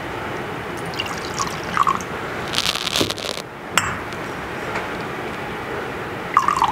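Wine and then a little water poured from glass cruets into a metal chalice: a short pouring rush, with light clinks of glass against the chalice and the altar.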